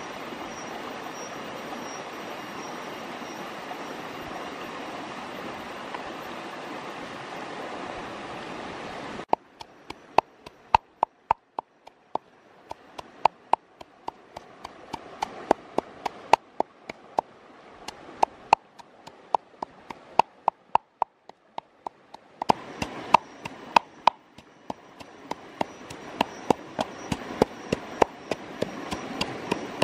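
Stream water flowing steadily, cut off suddenly about nine seconds in. Then a wooden pestle pounds red chili peppers and salt in a wooden mortar, in sharp uneven knocks about three a second, with fainter running water behind.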